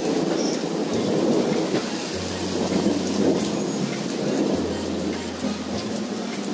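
Heavy rain pouring steadily, a dense even patter of rain hitting surfaces.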